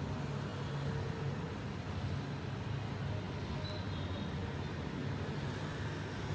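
Steady low background hum, with no distinct events.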